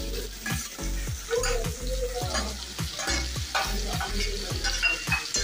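Octopus pieces being pushed off a steel plate into a wok of frying onion masala, sizzling in hot oil. A metal spatula scrapes and clicks against the plate and the wok again and again.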